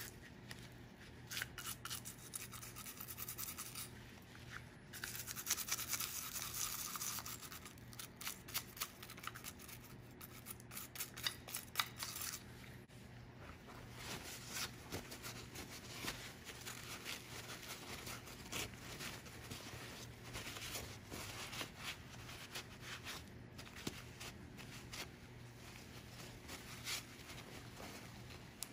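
Rust being scraped and scrubbed off a rusty metal 1960s Pepsi bottle opener with a small hand tool, in many quick rasping strokes. Partway through there is a short lull, and paper towel rubs over the piece before the scraping resumes.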